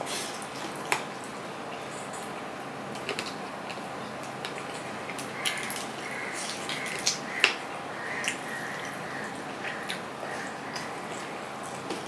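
Eating by hand: wet chewing and mouth smacks, with scattered short clicks as fingers mix rice and curry on a steel plate, over a steady hiss.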